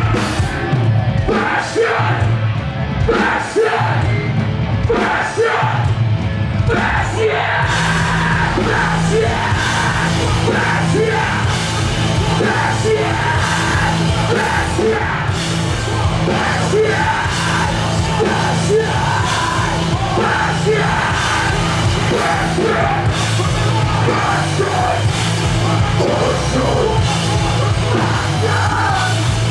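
Metalcore band playing live: screamed vocals over heavy guitars, bass and pounding drums, the full band growing denser about a quarter of the way in.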